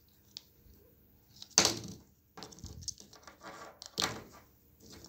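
Alexandrine parakeet biting and chewing a Samsung smartphone: its beak clicks and scrapes on the phone's casing, with two sharp cracks, about a second and a half in and again near four seconds.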